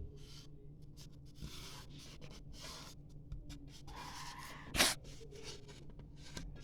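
Hands fitting a stick-on balance weight to a ceiling fan blade: soft scraping and rubbing, with one sharp click near the end.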